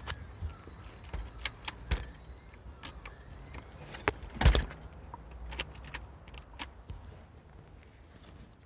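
Scattered light clicks and knocks, irregular and with no engine running, the loudest about four and a half seconds in.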